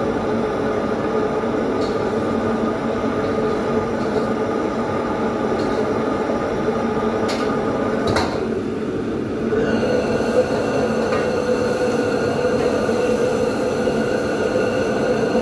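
Steady rushing noise of commercial wok burners and the overhead extraction hood, with a few sharp metal clicks of a ladle against the wok. About ten seconds in the noise gets slightly louder and takes on higher steady tones, with the burner lit under the wok.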